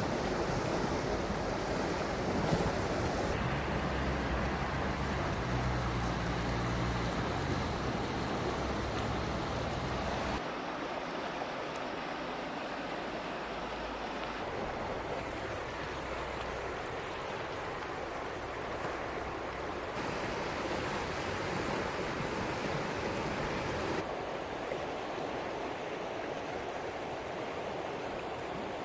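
Steady rushing of a river running high in spring ice drift, carrying ice floes. A low hum sits under it for a few seconds in the first third, and the tone of the rushing changes abruptly a few times.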